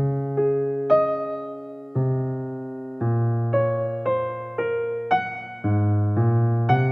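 Slow solo piano music, with chords and single notes struck about once or twice a second, each ringing and fading before the next.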